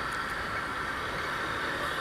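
Steady running of a motorcycle engine amid city traffic noise, even throughout with no sudden events.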